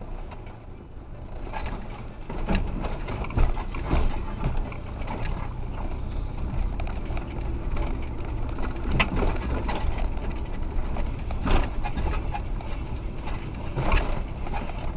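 Suzuki Jimny's engine running low and steady as the 4x4 crawls along a rough, muddy trail. Sharp knocks and rattles from the body and suspension come every few seconds.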